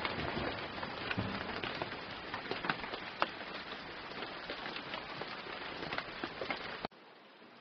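Steady rain with the distinct taps of individual drops striking a surface; it cuts off abruptly near the end.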